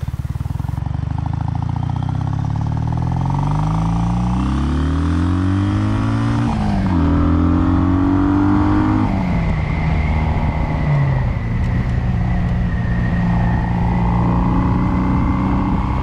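Kawasaki W800 air-cooled parallel twin, with stainless headers and reverse-cone megaphone slip-on mufflers, accelerating hard from a standstill. The revs climb for about six seconds, drop at a gear change, climb again and drop at a second change near nine seconds, then settle to a steady cruise.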